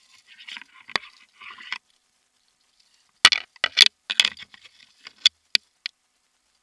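Rustling scrape, then a quick series of about eight sharp clicks and knocks from handling a switched-off Stihl MS200T top-handle chainsaw against climbing hardware: its plastic body, carabiners and lanyard clips knocking together.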